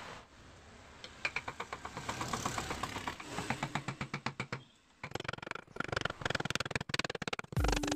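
Hand-held wood chisel cutting and scraping carved wood, a rapid ticking run of small cuts, a short pause, then a second run. Music comes in right at the end.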